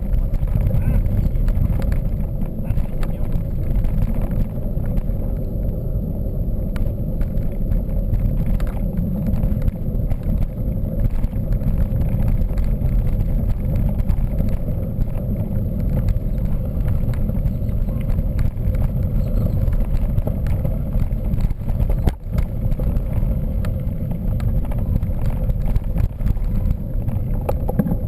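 Steady low rumble of a mountain bike being ridden on a trail, the tyres running over the ground, with a few short knocks from bumps.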